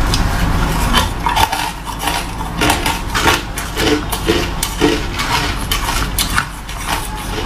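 Fingers digging through a tub of frosty crushed ice, the hard chunks clinking and crackling against each other in many quick, sharp clicks.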